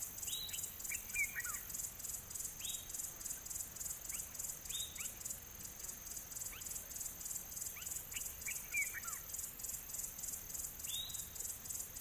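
Outdoor bush ambience: insects chirping in a fast, even pulse, with birds giving short falling whistled calls every few seconds.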